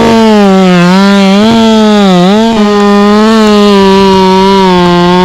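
Chainsaw running at full throttle in a cut. Its high engine note sags and recovers as the chain bites into the wood, dipping deepest about two seconds in, then holds steadier.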